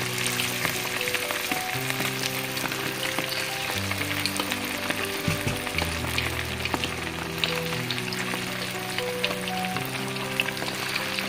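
Chicken pieces deep-frying in hot oil in a wok: a steady sizzle full of small crackles and pops. Soft instrumental music plays underneath.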